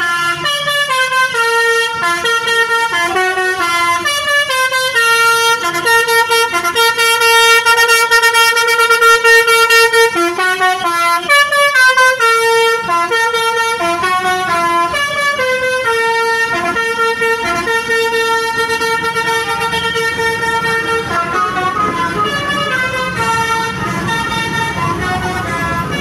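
Basuri V3 telolet horn, a multi-tone musical vehicle horn, playing a quick tune of stepping notes, several tones at once, with some notes held long between runs.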